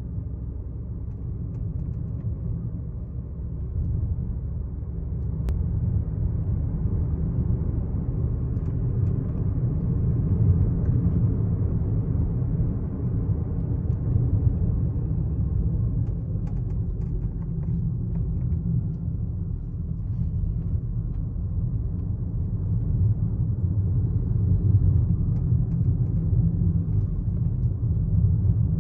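Twelfth-generation Toyota Corolla Altis running, heard inside the cabin: a steady low rumble, with a few faint ticks now and then.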